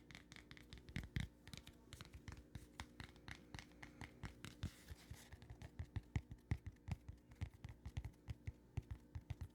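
Close-miked ASMR tapping and scratching: a quick, uneven run of light taps, several a second, with a short scrape about halfway through.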